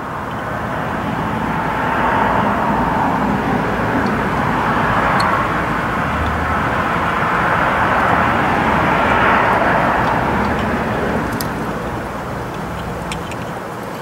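A passing vehicle: a steady rush of engine and road noise that swells, holds for several seconds and then fades. A few faint clicks of plastic wiring connectors being handled sound over it.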